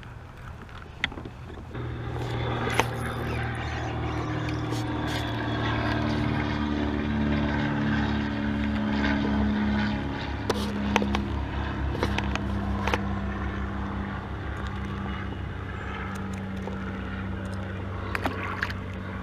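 Boat motor running steadily, with a slight change in pitch about ten seconds in, and scattered clicks and knocks of handling over it.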